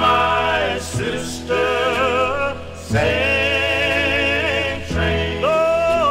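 Male gospel vocal quartet singing a spiritual in close harmony, in phrases that break off about every two seconds.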